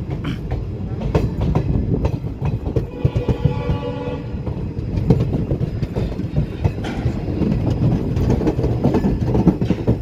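Passenger train rumbling and clattering with repeated knocks and clicks from wheels and couplings. A horn sounds for about a second and a half, around three seconds in.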